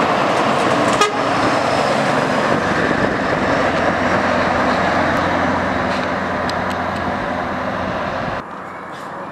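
A Scania 164 truck's V8 diesel runs loudly as the tractor-trailer drives past, with steady low engine tones under a dense noise. About eight seconds in the sound cuts off abruptly, leaving quieter street noise.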